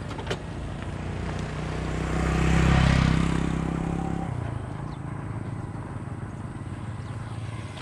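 A motor vehicle passing on the road: engine and tyre noise swell to a peak about three seconds in and fade away about a second later.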